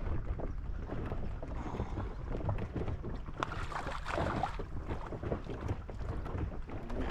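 Wind buffeting the microphone, a steady low rumble with small irregular crackles.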